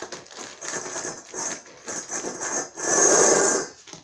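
A broom handle scraping and stirring dry kibble around in a stainless steel dog bowl while a puppy eats from it, in a run of rattling scrapes with the loudest, longest scrape about three seconds in. This is a food-aggression test, and no growl is heard.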